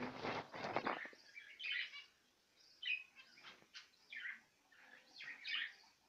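Small cage birds chirping, a string of short high chirps from several birds. A brief voice-like sound fills the first second.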